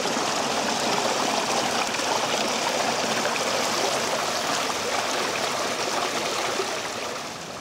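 Small forest stream running and trickling through fallen branches and debris, a steady rushing water sound that eases slightly near the end.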